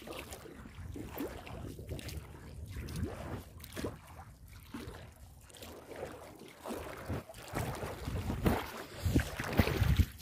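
Wind rumbling and buffeting on a phone's microphone over open river water, in irregular gusts that grow louder near the end.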